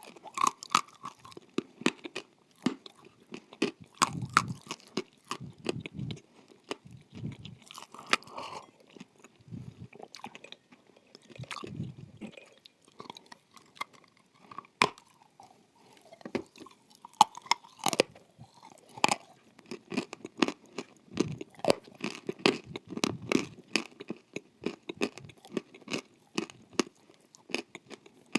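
Close-up bites and chewing of dry, crunchy edible clay: many sharp crackling crunches throughout, with lower chewing sounds between them.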